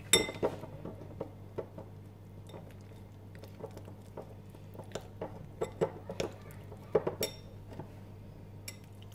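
Metal spoon stirring flour and water in a glass bowl, clinking irregularly against the glass as the mixture is worked into a flour paste.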